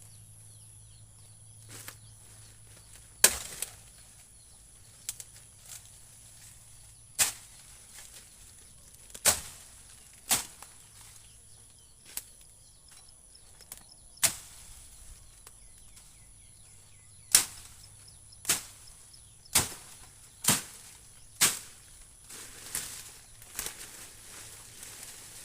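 A blade chopping into wood with single sharp blows at irregular intervals, about a dozen strikes.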